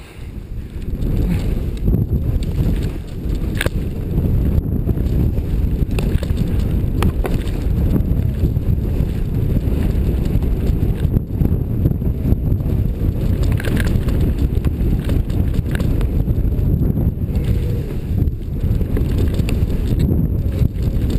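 Wind rumbling on a skier's head-mounted camera microphone during a fast run through deep powder snow, mixed with the rush of the skis through the snow.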